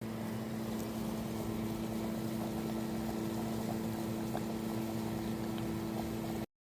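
A steady motor hum with a constant pitch that cuts off suddenly near the end.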